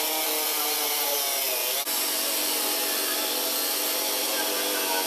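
Power cutting tool running steadily as it cuts through the sheet steel of a pickup's cab corner, with a short break about two seconds in.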